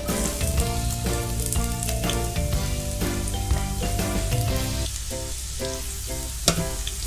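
Chopped onion sizzling as it fries in hot oil in a wok, a steady crackling hiss, with one sharp tap about six and a half seconds in.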